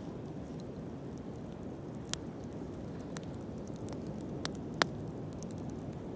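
Wood fire burning with a steady low rush, broken by scattered sharp pops and crackles from the burning wood; the loudest pop comes about five seconds in.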